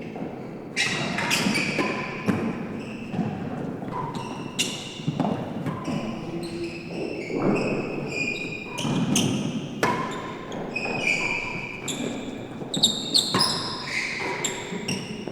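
A real tennis rally: repeated sharp strikes of the solid ball off rackets, the court walls and the sloping penthouse roof, a few a second and irregular, each echoing in the enclosed hall.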